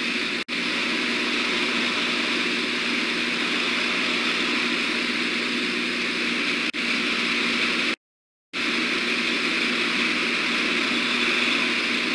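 Steady rushing outdoor noise picked up by the nest camera's microphone, with a faint constant hum in it; the audio cuts out three times, once for about half a second.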